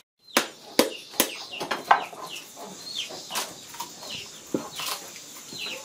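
Chickens clucking in short calls that fall in pitch. Over them come a series of sharp cracks and snaps as a coconut's shell and husk are broken and peeled apart by hand. The cracks are the loudest sounds, one about a second in and one about two seconds in.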